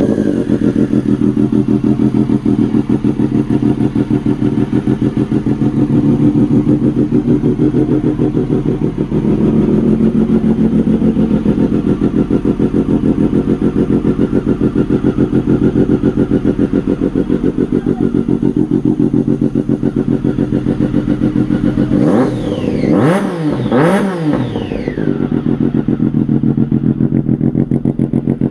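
Triumph Daytona 675's inline-three engine idling steadily just after a start, then blipped twice in quick succession about three-quarters of the way through, the revs rising and falling each time before settling back to idle.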